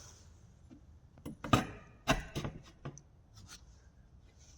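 Metal pipe being worked into position against a door: a string of sharp knocks and clicks with some scraping, the loudest about a second and a half and two seconds in.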